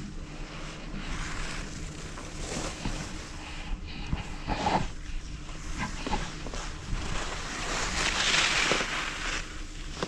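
Snowboard sliding and scraping over groomed snow: a hiss that swells and fades with the turns, loudest about eight seconds in, with a few light knocks.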